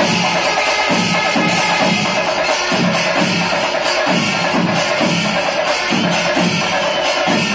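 Pandi melam temple percussion ensemble at its kalasam climax: massed chenda drums beaten over a dense, unbroken wash of ilathalam cymbals, with deep drum strokes falling in pitch and repeating less than a second apart.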